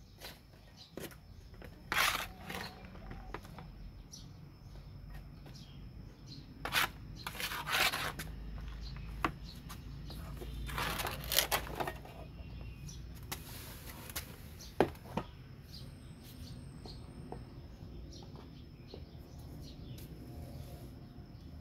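Gloved hands working crumbly potting soil and compost into plastic nursery pots: short bursts of rustling and crumbling about 2, 7–8 and 11 seconds in, with a sharp click of plastic or soil near 15 seconds.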